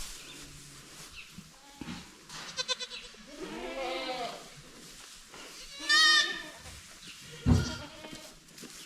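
Goats bleating: a fluttering, quavering call about two and a half seconds in, a lower bleat about a second later, and a loud high quavering bleat about six seconds in. A sharp thump comes about a second after the loudest bleat.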